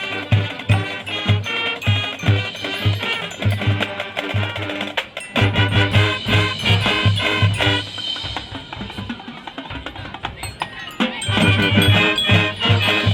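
High school marching band playing a brass melody over a steady bass-drum and percussion beat. The drums drop out for a softer passage about two-thirds of the way in, then the full band comes back in near the end.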